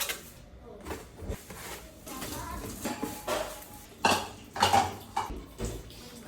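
Kitchen utensils clinking and clattering against pots and dishes in irregular knocks, with the loudest clanks a little past the middle.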